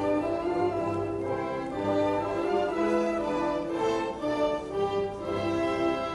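Recorded orchestral anthem music, strings and brass holding slow sustained chords, played over a public-address loudspeaker.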